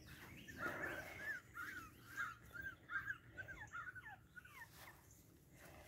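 Boston Terrier puppies whining and whimpering in a rapid string of short, high-pitched cries, several a second, some dipping in pitch. The cries die away about five seconds in.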